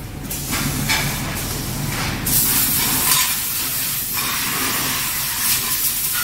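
Steam hissing and sizzling off hot metal moulds for PVC soft-rubber parts as they are cooled after the curing oven. It swells to a loud, steady hiss about two seconds in.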